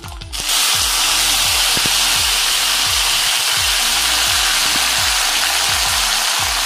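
Boiled taro leaves and stems (kochu saag) tipped into hot oil in a kadai, sizzling loudly from about half a second in and staying steady.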